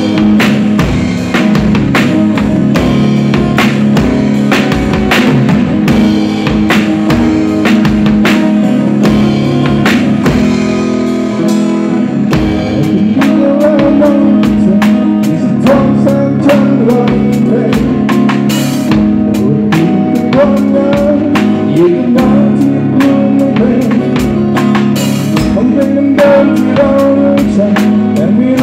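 Drum kit played loudly with a steady beat of kick, snare and cymbal hits, over band music with sustained bass notes; a wavering melodic line comes in about halfway.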